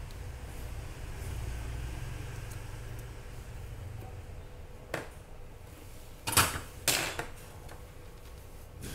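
Tools being handled on a workbench: a sharp click about five seconds in, then two short, loud clattering noises about a second and a half later, as the tweezers and soldering iron are put down and the multimeter probes picked up. A low steady hum sits underneath.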